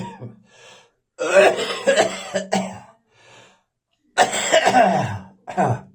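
A person coughing in harsh fits, several coughs to a fit with short pauses between: a lingering post-viral cough.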